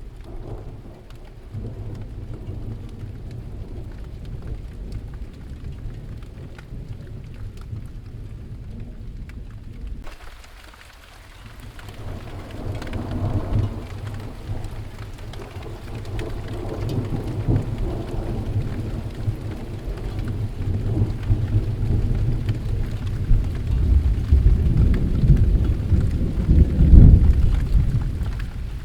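Steady rain with rolling thunder. Thunder rumbles through the second half in long low rolls, loudest near the end.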